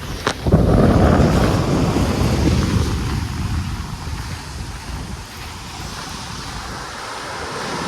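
Wind buffeting the microphone over the wash of sea surf, strongest in the first few seconds and then easing off, with a brief click just after the start.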